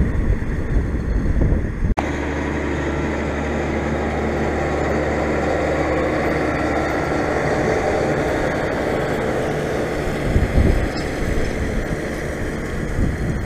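John Deere 6830 Premium tractor engine running steadily as it pulls a Claas Liner 2800 rake close past, loudest in the middle. Wind buffets the microphone for the first couple of seconds and again near the end.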